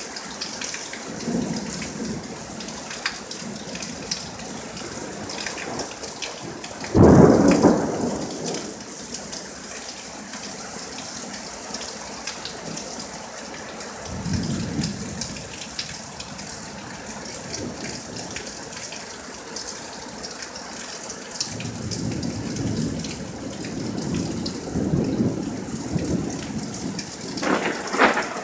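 Thunderstorm: steady rain falling, with a loud thunderclap about seven seconds in, a quieter rumble about halfway, and rolling thunder building through the last third, with a sharp crack near the end.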